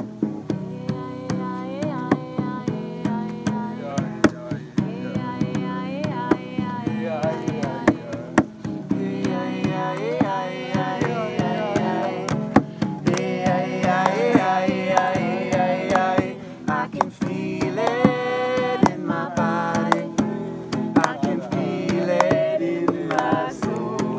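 Acoustic guitar strummed in a steady rhythm, with a voice singing over it.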